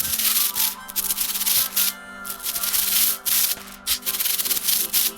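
A foley take for a mechanical slot-machine effect: an object worked by hand in rapid scratchy rubbing or shaking strokes, in irregular bursts with short breaks about two and four seconds in.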